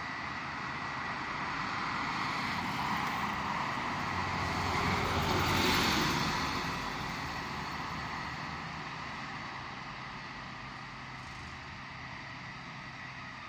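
A road vehicle driving past close by, its tyre and engine noise swelling to a peak about six seconds in and then fading away over a steady background hum.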